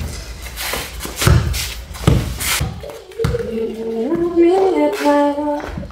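A cleaver chops through a thick slab of steamed tofu onto a plastic tray, giving a few knocks and thuds in the first couple of seconds. From about three seconds in, a short melody of held notes steps up in pitch.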